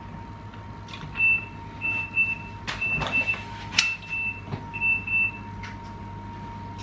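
Cooking appliance timer beeping: high beeps in pairs, about one pair a second, five times, starting about a second in, signalling that the food inside is done. A few knocks sound among the beeps.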